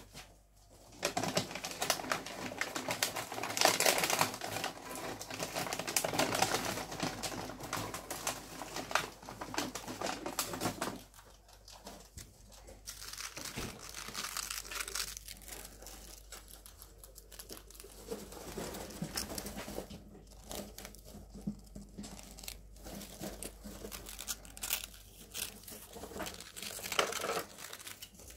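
Rustling and crinkling of pet rats scrabbling through loose cage bedding: loudest over the first ten seconds or so, then softer and patchier.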